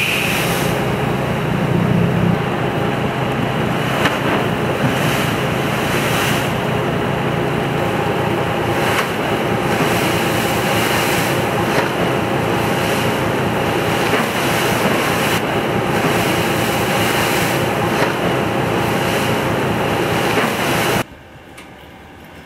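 Sea water rushing and splashing along the hull of a ship under way, with wind buffeting the microphone and a steady machinery hum underneath. Near the end it cuts off suddenly to quiet room tone.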